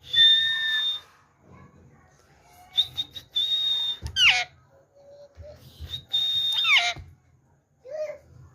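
Rose-ringed parakeet whistling: three high, steady whistles of about a second each, the second and third ending in a quick falling swoop, then a short low call near the end.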